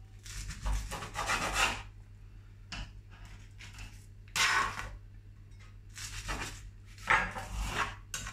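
Kitchen knife cutting cooked chipolata sausages in half on a plastic chopping board: a series of short scraping strokes as the blade goes through and rasps on the board.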